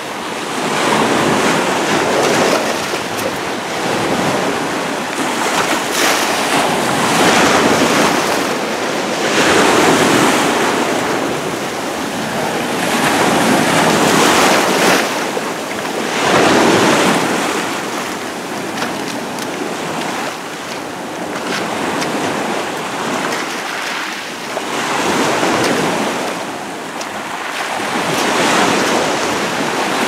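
Small waves breaking and washing up over rocks and pebbles at the water's edge, the surf swelling and falling back every few seconds.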